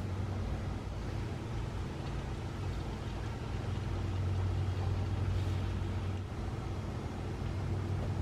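Motor oil being poured from a plastic jug into a funnel in an engine's oil fill, over a steady low mechanical hum that swells slightly midway.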